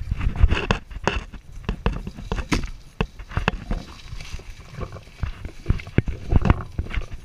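Irregular footsteps on a dirt and gravel trail, with brush rustling and the rubbing of a hand-held action camera, heaviest about the first second.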